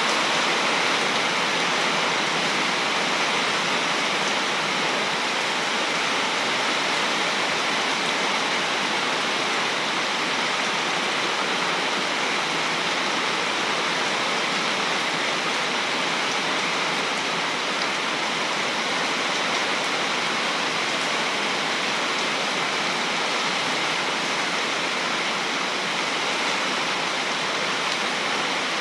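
Heavy rain falling steadily, a dense even hiss with no thunderclaps.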